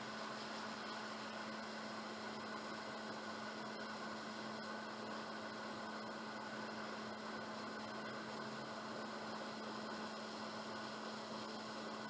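Hot air rework station blowing steadily onto a chip to desolder it, a constant hiss with a low hum.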